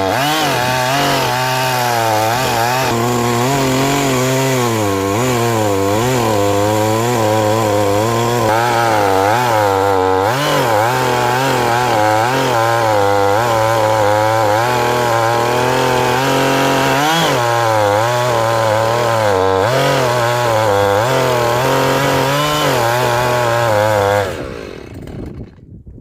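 Two-stroke gasoline chainsaw cutting through a thick oak log, its engine pitch rising and falling as the chain bites into the wood. The saw cuts off abruptly about two seconds before the end.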